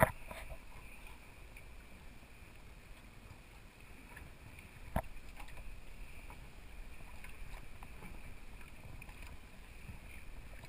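Quiet open-water ambience on a small anchored fishing boat: wind and water against the hull with a faint steady high hiss. A single short knock about five seconds in.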